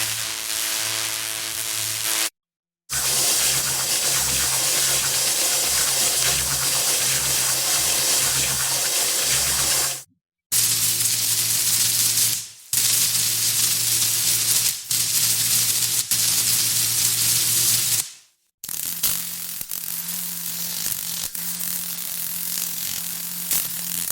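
Several synthesized shock-wave sound effects in a row, each a sustained hissing, crackling rush over a low steady hum, separated by brief silences.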